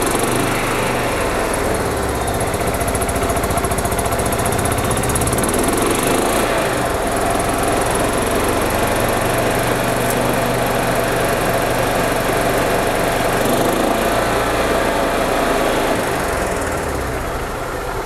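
Gas engine of a 1999 Club Car DS golf cart running steadily, back in working order after a carburetor cleaning and new fuel filters cured a crank-no-start. Its governor is cranked to the maximum, so the engine runs up to its rev limit. The sound eases off slightly near the end.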